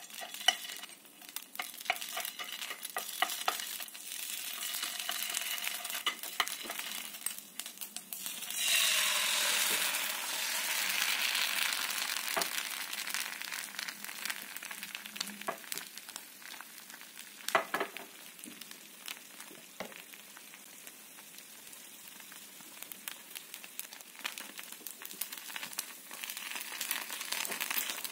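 Crepe batter sizzling in a hot oiled nonstick frying pan, with light ticks of a spoon as drops of coloured batter go in. About eight seconds in, a ladle of white batter hits the pan with a sudden louder sizzle that slowly dies down as the crepe sets, with a few clicks of the ladle on the pan.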